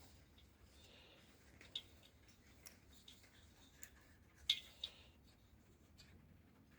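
Faint, sparse clicks and small taps of hand tools working a small bolt tight on a diesel heater's control board. The loudest two come close together about four and a half seconds in.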